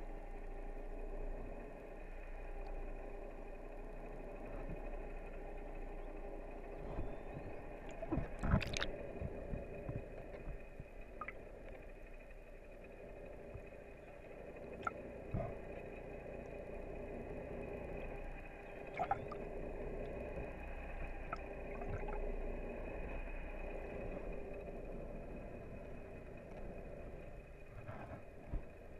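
Muffled underwater sound heard through a submerged camera: a boat engine's steady hum with a low rumble, and a few sharp knocks, the loudest about a third of the way through.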